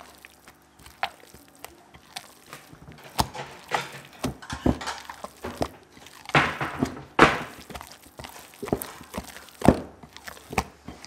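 Very wet, freshly oiled sourdough dough being stretched and folded by hand in a glass bowl: irregular wet squelches and slaps with small knocks. The two loudest, longer squelches come a little past the middle.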